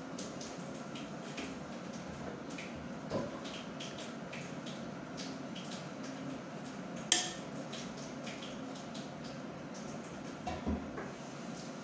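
Steel spoon clinking and scraping against a steel bowl as keema filling is spooned into samosa wrappers, a few light scattered clicks over a steady background hum, with one sharper clink about seven seconds in.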